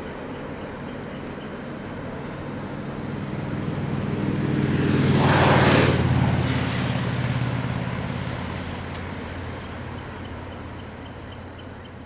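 A vehicle passes close by: a low engine note and rushing noise swell to a peak about halfway through, then fade away. Under it a thin, steady high-pitched whine runs throughout.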